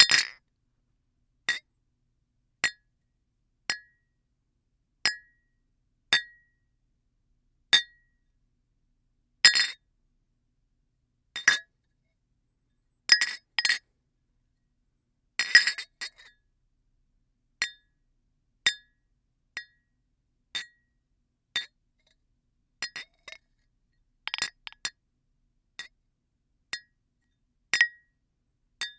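Drinking glasses clinking against each other, one sharp clink at a time, roughly once a second. A few come in quick pairs or small clusters, and each has a short bright ring.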